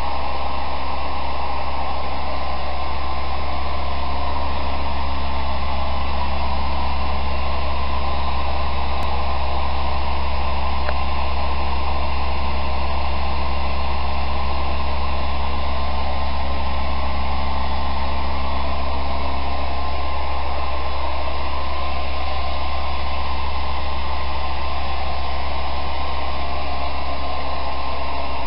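Built-in electric blower fan of an airblown Halloween inflatable running steadily, keeping it inflated: a constant rush of air over a low motor hum.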